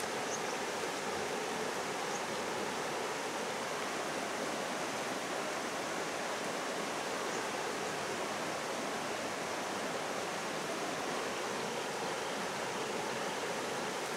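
Shallow stream running steadily over rocks, a constant even sound of flowing water.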